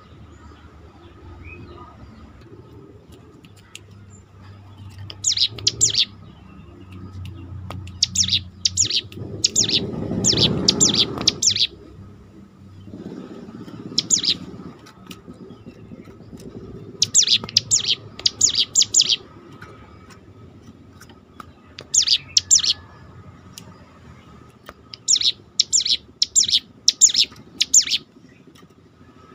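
Ciblek gunung (cigun), a mountain prinia, singing: short bursts of several rapid, high-pitched notes repeated every few seconds. A low rumble of background noise swells briefly about ten seconds in.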